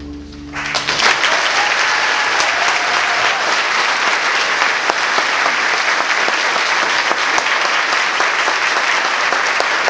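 The final chord of a string orchestra dies away, and about half a second in, audience applause breaks out and keeps going at full strength.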